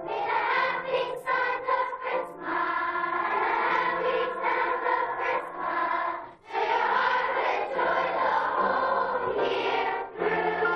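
Children's chorus singing a song together, the sung phrases broken by short pauses and by a brief near stop about six seconds in.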